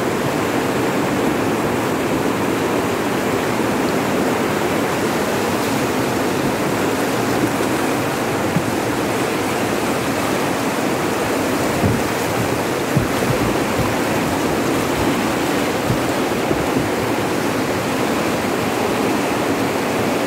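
Fast river water rushing over rapids and rocks, a loud steady rush, with a few brief low thumps about halfway through.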